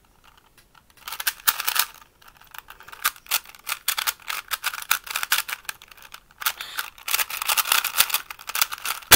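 Rapid, irregular clicking and clacking of a Rubik's Metalic 3x3 cube's plastic layers being turned fast during a speed solve, starting about a second in. It ends in one sharp, loud slap, the hands coming down on the speedcubing timer to stop it.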